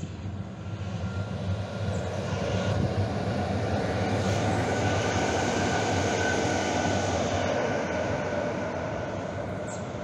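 Calgary CTrain light-rail train passing close by. Its rolling rumble swells over a couple of seconds, holds, then slowly fades, with a thin high whine running above it.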